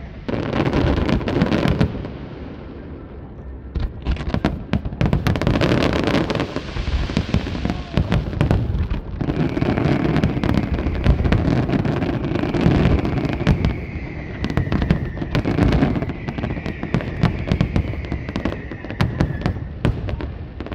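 Aerial fireworks display: a rapid, continuous barrage of shell bursts, dense cracks and bangs over a steady rumble, easing briefly about two to four seconds in.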